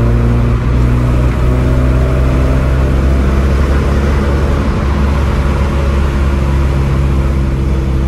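Tofaş Doğan SLX engine and road noise heard from inside the cabin while driving, a steady low drone with the engine note creeping up slightly in the first few seconds.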